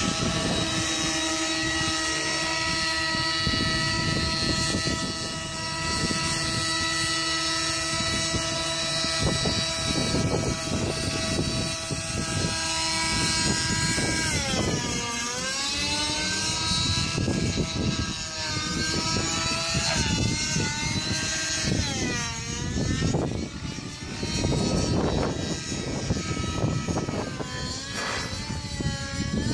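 TSA Infusion 600N nitro model helicopter flying: the two-stroke glow engine and rotors give a high, steady whine for the first half. About halfway in the pitch starts dipping and rising again and again as the helicopter swoops through aerobatics.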